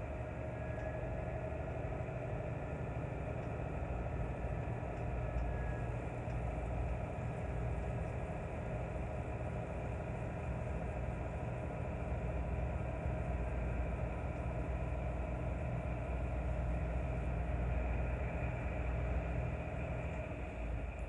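Semi-truck engine drone and road noise heard from inside the cab while driving, steady and even throughout.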